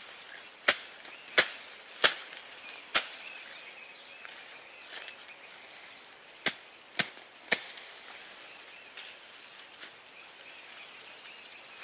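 Sharp cracks of sticks being snapped by hand. Four come about 0.7 s apart in the first three seconds, then after a pause three more about half a second apart.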